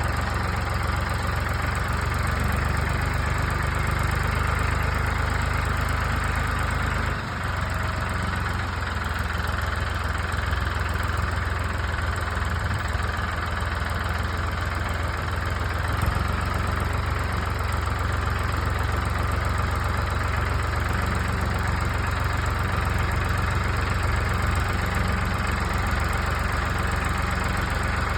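Skid steer engine running steadily at a low, even speed. The sound dips briefly about seven seconds in.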